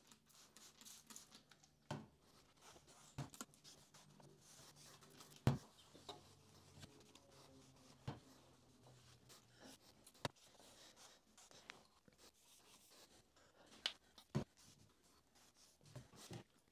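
Faint rubbing and scratching of a rag wiping down the metal table and ways of a benchtop milling machine, broken by scattered light clicks and knocks, the loudest about five and a half seconds in.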